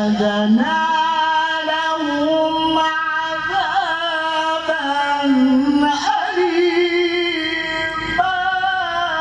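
Male Quran reciter's voice in melodic tilawah, sung into a handheld microphone: one long phrase of held notes that step up and down with quick ornamental turns.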